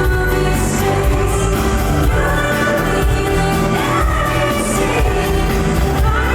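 Pop ballad played loud through a concert sound system, with a woman singing the melody live over the backing track.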